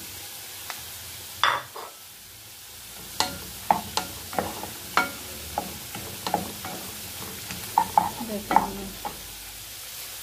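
Onion, garlic and bell pepper pieces sizzling in hot oil in a pot, with one loud knock about a second and a half in as the peppers go in. Then a wooden spoon stirs them, clacking and scraping against the pot many times over the steady sizzle.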